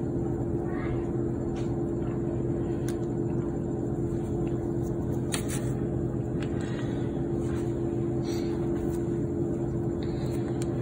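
A steady machine hum runs throughout. A few faint soft taps and rustles come from cheese slices being torn and laid onto deli turkey.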